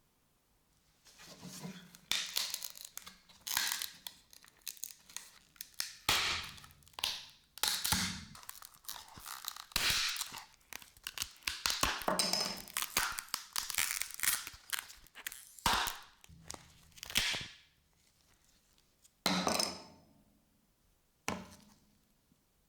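A series of irregular scraping and rubbing strokes with a few knocks, stopping and starting, with a pause near the end and one last stroke shortly before the end.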